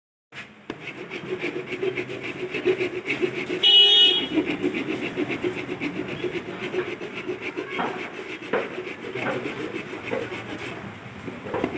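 Hand file rasping back and forth over a TVS motorcycle's plastic headlight lens, grinding out its scratches, in quick repeated strokes. A vehicle horn honks briefly about four seconds in.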